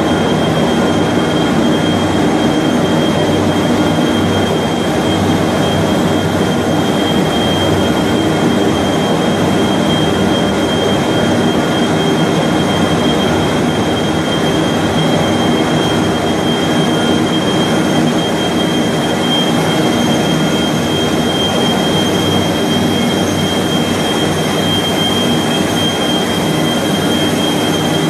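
Paper-making machine plant running: a loud, steady industrial drone from the machinery and its pumps, with a constant high whine over it and no change in pace.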